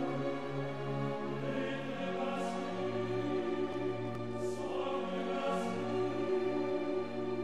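A choir singing a classical, opera-style song with accompaniment, in long held notes.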